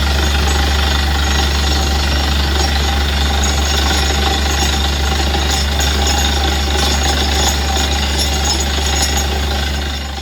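Borehole drilling rig running hard as it drills, a loud steady mechanical din over a strong low hum. The bit has reached granite and is breaking it down.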